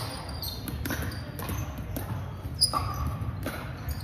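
Pickleball paddles striking a plastic pickleball back and forth in a rally, a series of sharp pops, with shoes squeaking briefly on the hardwood court.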